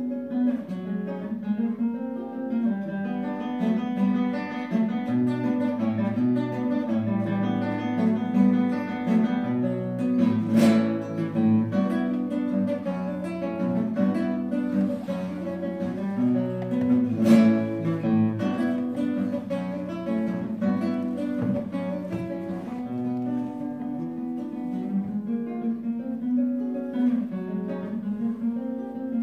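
Nylon-string classical guitar played solo, fingerpicked melody over a moving bass line. Two sharp clicks cut through, about ten seconds in and again about seventeen seconds in.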